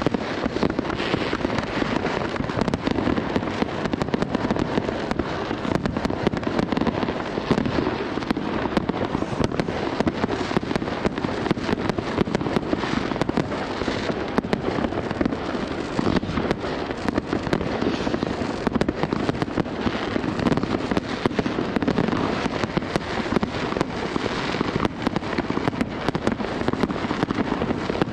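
Many fireworks going off at once: a steady barrage of overlapping bangs and crackles with no let-up.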